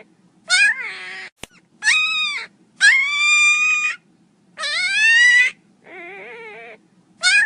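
Miniature pinscher puppy crying loudly: a string of about six high-pitched whining yelps, each under a second, most rising then falling, with one quieter, lower whine near the end.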